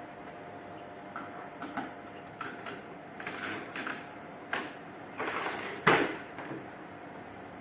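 Irregular clicks and clacks of a household electric fan's push-button speed switch being pressed repeatedly, the loudest near the end, over a faint steady hum. The switch keys are stiff.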